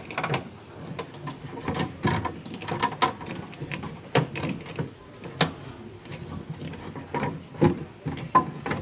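Irregular clicks and knocks of tools and parts being handled during a refrigerator repair, coming at uneven intervals with a few sharper knocks.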